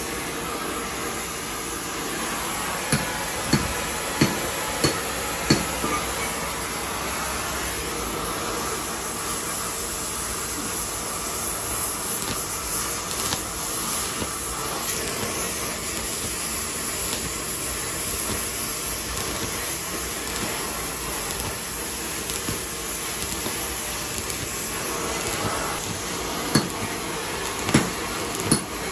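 Electric arc welding on a boat's steel exhaust pipe: a steady frying hiss of the arc as a bead is run. A few sharp taps come near the start and again near the end.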